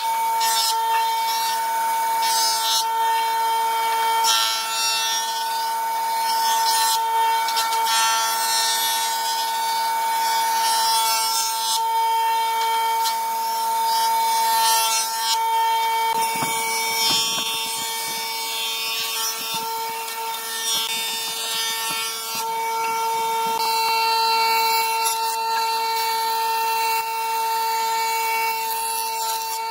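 Jointer running with a steady high whine from its spinning cutterhead, while a board is fed across it. The knives cut in repeated spells of loud hissing as the wood passes over them.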